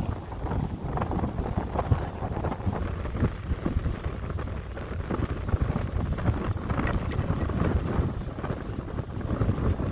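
Low, rumbling, crackling roar of a Falcon 9 rocket launch heard from a distance, with irregular crackles throughout and wind buffeting the microphone.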